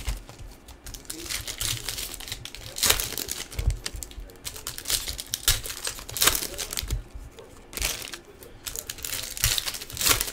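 Foil wrappers of 2016 Bowman baseball hobby packs crinkling and tearing as they are opened by hand, in irregular bursts of crackle.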